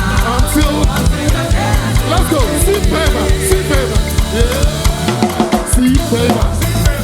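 Upbeat gospel praise music with a drum kit and bass keeping a steady beat, melodic lines gliding over it.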